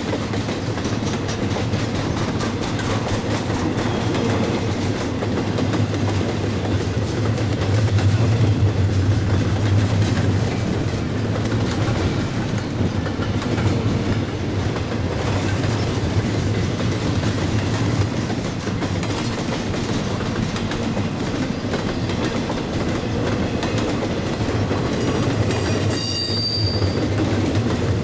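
Freight train of double-stack container well cars rolling steadily past over jointed rail, the wheels clicking over the rail joints under a continuous low rumble. A brief high squeal comes near the end.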